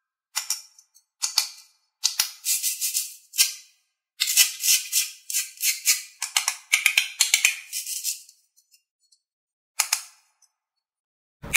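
Hard plastic toy fruit being handled: bursts of quick clicking and crackling, a few short ones, then a longer run of several seconds, then one more short burst.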